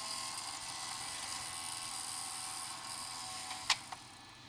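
Floppy disk drive in an old 386 PC whirring and buzzing as it spins up and tries to read an inserted disk, then two clicks about three and a half seconds in as it stops. The drive is judged not to sound very healthy.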